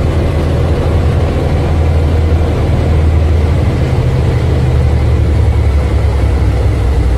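Utility vehicle's engine idling, a steady low hum heard from the driver's seat.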